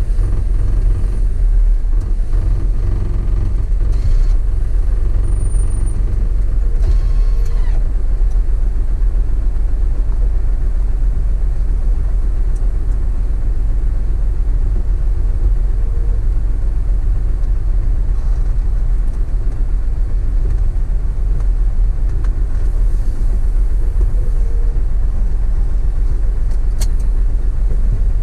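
Steady low rumble of a motor vehicle under way, engine and road noise.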